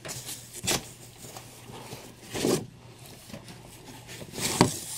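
Comic books being handled and slid about in a cardboard shipping box: a few short rustles and scrapes, with a sharper knock about four and a half seconds in, over a steady low hum.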